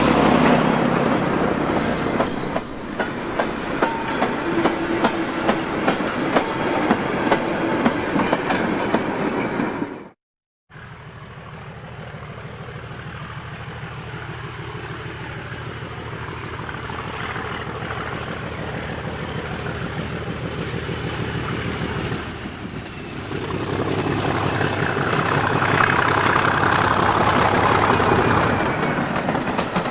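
A Class 14 diesel-hydraulic shunter runs past close by with a train of wagons, its wheels clicking over rail joints, with a brief high wheel squeal a few seconds in. After a cut about ten seconds in, a Class 37 diesel locomotive hauling coaches approaches from a distance, growing steadily louder and loudest as it passes near the end.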